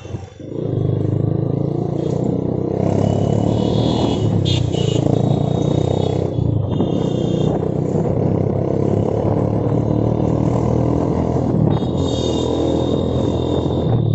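Yamaha FZ's single-cylinder motorcycle engine running steadily under way, with road and wind noise.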